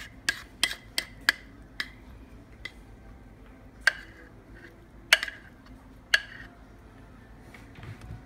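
A utensil clinking against the bowl and the metal loaf pan while batter is scraped out into the pan: about nine sharp clinks at uneven intervals, most in the first two seconds, the loudest a little after five and six seconds.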